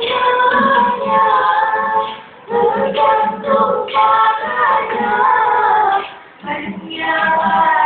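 Choir singing sustained phrases in several voices, with brief breaths between phrases about two and a half seconds and six seconds in.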